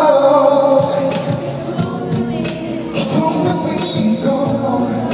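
Live pop dance music with singing and a steady drum beat, played through a concert PA.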